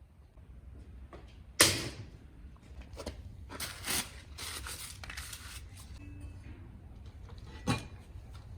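A sharp knock about one and a half seconds in, then a few seconds of rustling, and a second, smaller knock near the end.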